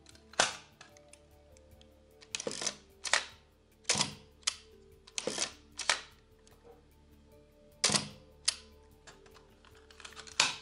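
Mamiya RZ67 Professional medium-format SLR worked by hand: about ten sharp mechanical clicks and clacks of its levers, knobs and moving parts, spaced unevenly, some in quick pairs. Quiet background music plays underneath.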